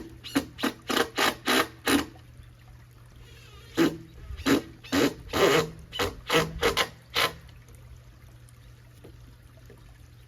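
Rhythmic rasping strokes, about three a second, in two runs: five strokes in the first two seconds, then after a pause a second run from about four to seven seconds in.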